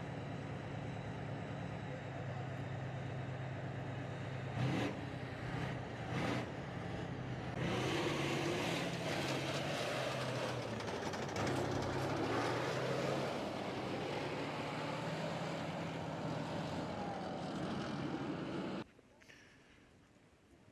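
A tracked tank's engine running as the tank drives along a road, with track clatter. Two sharp knocks come about 5 and 6 seconds in, and it gets louder from about 8 seconds as the tank comes close. The sound drops away suddenly near the end.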